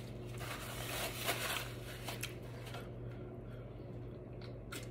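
Close-miked chewing of a mouthful of burrito, soft wet mouth sounds, then a few sips from a can of sparkling water with small clicks and swallows near the end.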